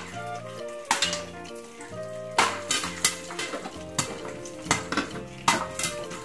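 Popcorn kernels popping inside a covered metal pot on the stove: about eight sharp, irregular pops.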